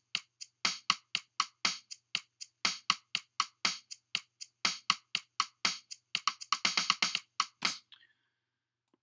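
Redrum drum machine in Propellerhead Reason playing back a simple programmed beat at 120 BPM: short drum hits about four a second, with a quicker run of hits near the end, stopping about eight seconds in.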